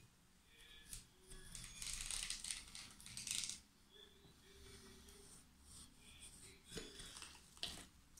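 A rotary cutter drawn along the edge of a wooden template, slicing through a sheet of pressed beeswax foundation on a board: a faint scraping for about two seconds, then two short knocks near the end.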